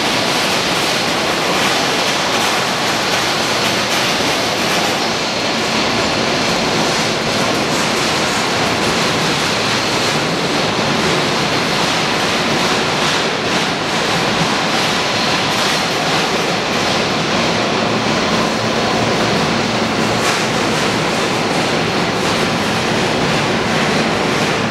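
Boeing 747-400's four Rolls-Royce RB211 turbofan engines running at taxi thrust: a steady rush with a faint high whine.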